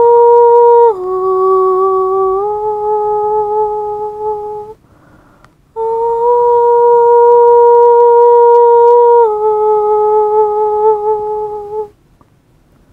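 A solo voice humming two long phrases, each a high held note that steps down to a lower one. A breath is drawn between them about five seconds in, and the humming stops about a second before the end.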